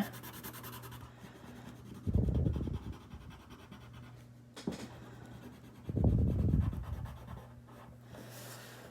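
Coloring on paper: faint rubbing strokes of yellow being blended over green, with two soft low bursts about two and six seconds in and a short click between them.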